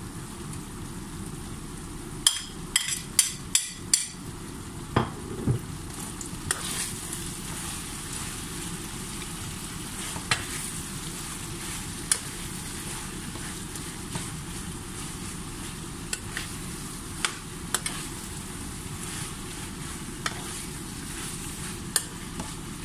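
A metal spoon clicks sharply about six times in quick succession as chopped jalapeño peppers are knocked from a plate into a frying pan. The spoon then stirs them through pork simmering in coconut milk, with occasional knocks against the nonstick pan over a steady low background noise.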